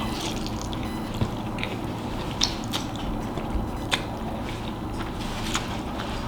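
Close-up eating sounds: chewing with scattered sharp mouth clicks and smacks.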